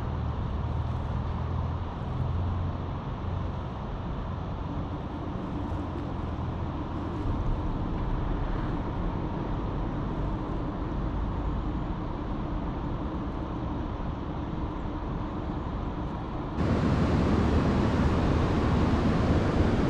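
Steady low rumble of a running vehicle or road traffic, with no distinct events. About three-quarters of the way through it cuts abruptly to a louder, brighter, even rushing noise.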